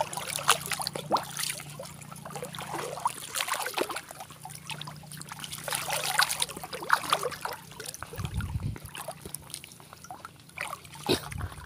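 Footsteps wading through knee-deep swamp water: irregular splashing and sloshing with each stride.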